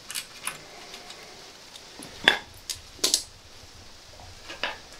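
A handful of short, sharp metallic clinks and knocks of a hand tool against the motorcycle's exhaust clamp bolts and pipes, the loudest a little over two seconds in.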